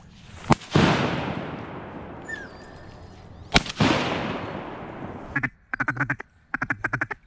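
Two shotgun shots about three seconds apart, each followed by a long echo that fades over a couple of seconds. Then a quick run of duck quacks, coming faster near the end.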